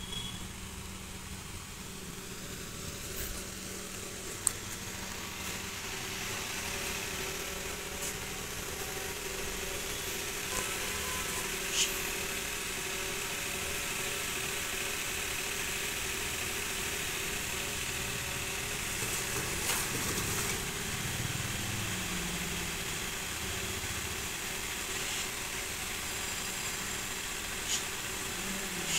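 Steady outdoor background hum and hiss, with a few faint clicks.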